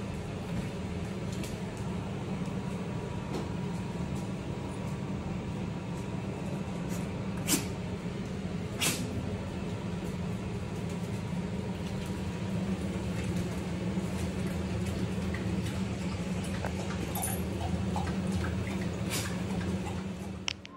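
Puppies playing and scuffling, with a steady low hum underneath and two sharp knocks near the middle.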